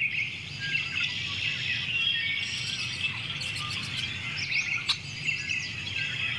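A chorus of many small birds chirping and calling at once, dense overlapping chirps and short falling calls. There is a single sharp click about five seconds in.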